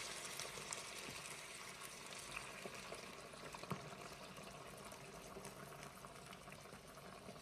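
Boiling water poured from an electric kettle into a wok of pan-fried crucian carp, bubbling and crackling as it hits the hot oil, faint and slowly dying down. This is the start of a crucian carp soup: boiling water is used so the broth comes out richer.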